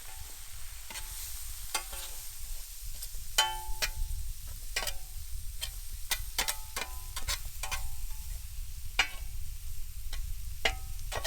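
A utensil clinks and scrapes against a big steel Muurikka pan as frying chicken and vegetables are stirred. Each knock sets the pan ringing briefly, at an irregular one or two knocks a second, over a faint sizzle.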